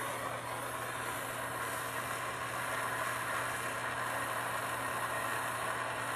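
Hand-held gas plumbing torch burning with a steady hiss-roar as its flame heats a copper pipe joint for soldering.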